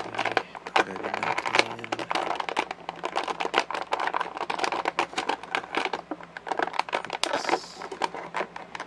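Plastic toy packaging being handled and pushed apart: dense, rapid crinkling and clicking of the figure's plastic blister bubble, with a short hiss about seven seconds in.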